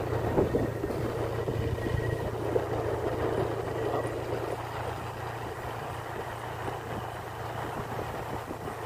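Motorcycle engine running steadily while riding along a road, with wind and road noise. The overall level eases a little in the second half.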